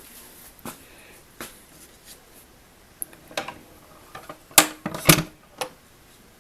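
Clicks and knocks from handling a wind-up Victor Victrola phonograph, with two loud sharp knocks about half a second apart past the middle. No record is playing yet.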